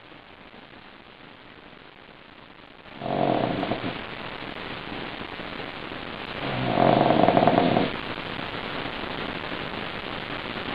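A sleeping pug snoring: two rough snores each about a second long, a few seconds apart, over a steady background hiss.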